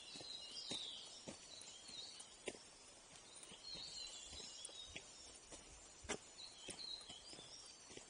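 Footsteps crunching on a dirt forest trail at walking pace, faint, with small birds chirping high in the background.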